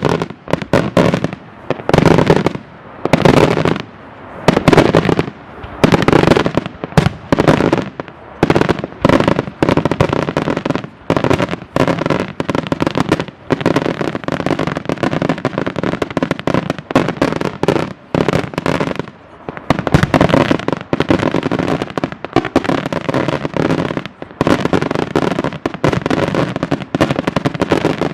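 Daytime fireworks display: a rapid string of loud bangs and firecracker reports, in clusters with short gaps for the first several seconds, then an almost unbroken barrage from about eight seconds in.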